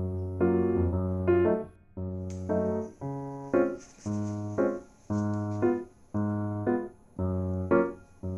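Background music: a keyboard tune played in short, bouncy phrases, with notes coming about twice a second.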